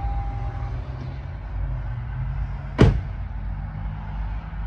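A 2022 Toyota Tundra's door opening and its power running board dropping down, giving one loud clunk about three seconds in over a steady low hum.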